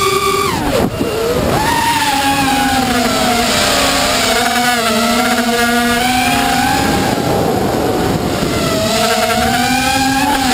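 Electric motors and propellers of an FPV radio-controlled aircraft whining in flight, the pitch rising and falling with the throttle. The pitch drops sharply about a second in, then climbs again.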